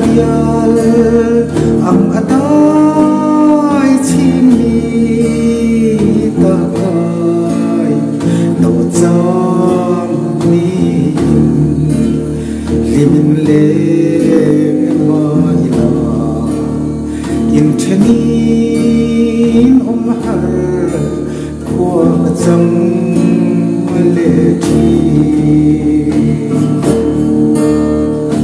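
A man singing a song in Mizo while playing a cutaway acoustic guitar.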